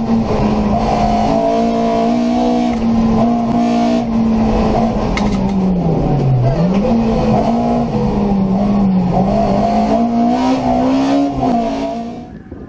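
In-car sound of a race-prepared VW Polo's small four-cylinder engine held at high revs through a slalom, its pitch wavering with each turn. About six seconds in the note drops sharply and climbs straight back up, and near the end the engine fades away.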